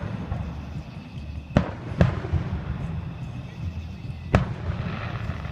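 Fireworks exploding overhead: three sharp bangs, two close together about a second and a half in and a louder one past the four-second mark, the last followed by crackling.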